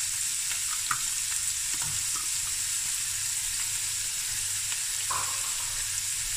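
Chopped onion sizzling steadily in hot oil, with a couple of faint clicks as the last pieces are dropped in.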